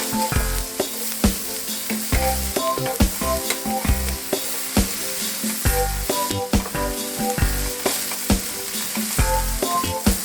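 Bread pieces, bacon, onion and bell pepper sizzling as they fry in a frying pan, with background music of short melodic notes over a bass line.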